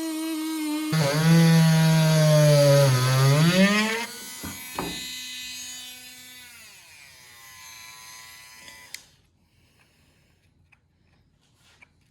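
Dremel rotary tool running with a whine that drops sharply in pitch as the bit bogs down cutting into the plastic hinge, then climbs back when the load comes off. About six and a half seconds in it is switched off and winds down, falling in pitch until it stops.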